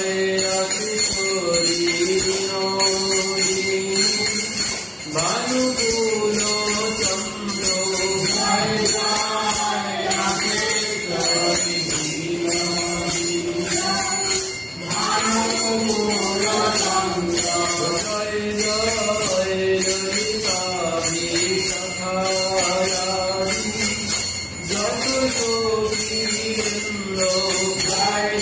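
Devotional music, in the style of a chant: a melody that rises and falls, over jingling percussion keeping a steady beat.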